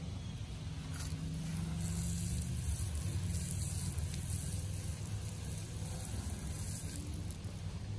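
Water spraying from a garden hose's pistol-grip spray nozzle onto a freshly pulled radish and the grass below, a steady hiss that swells about two seconds in, over a low steady rumble.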